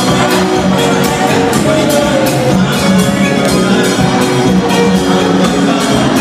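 Live gospel band playing loudly, with a fast, steady drum beat under keyboard and electric guitar.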